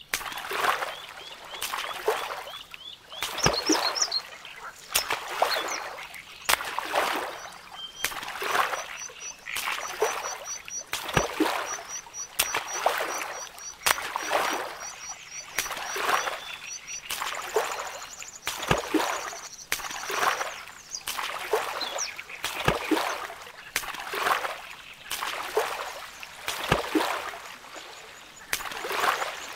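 Kayak paddle strokes dipping and splashing in calm river water, a steady rhythm about every one and a half seconds, with an occasional sharp knock. Birds chirp in short repeated series in the first half.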